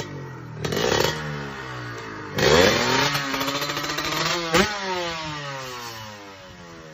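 Drag-racing motorcycle engine with an expansion-chamber exhaust, revved on the start line. It gives a short blip about a second in and a sharp rise about two and a half seconds in, and then the revs sink slowly. A sharp crack comes about four and a half seconds in.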